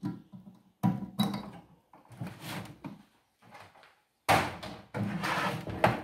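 Handling noise from an opened microwave oven: a wire connector being worked off the magnetron terminal, then rubbing and scraping as the oven's sheet-metal housing is turned on the bench, loudest near the end.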